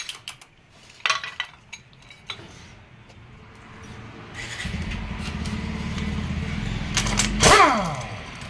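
A few light metal tool clinks, then a vehicle engine running that grows louder, with its pitch falling steeply near the end as it revs down or passes by.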